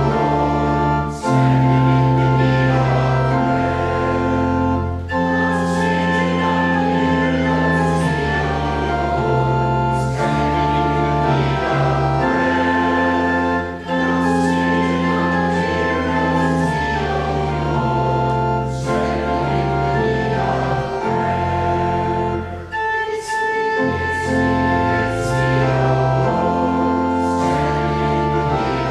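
Organ playing slow sustained chords under voices singing a hymn, the chords changing every second or two.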